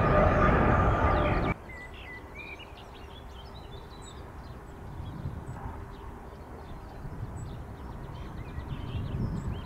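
Boeing 777 jet engines at takeoff power as it climbs out, a loud rumble with a steady whine, cut off suddenly about a second and a half in. Then birds chirping over a faint low jet rumble from a Boeing 757 landing, the rumble growing near the end as it touches down.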